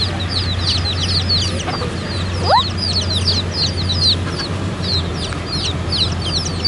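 Chicks peeping in a rapid, continuous stream of short, falling high-pitched peeps. A steady low hum runs underneath, and about two and a half seconds in a single rising whistle-like call sweeps up.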